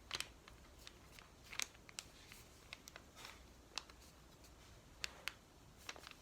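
Faint crinkling and rustling of a sheet of paper being folded down and creased by hand, in a few scattered soft crackles.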